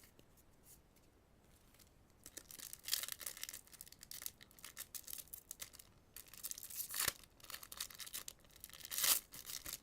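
Foil Yu-Gi-Oh booster pack being crinkled and torn open by hand. A run of crackling rustles starts about two seconds in, with sharper, louder rips around seven and nine seconds in.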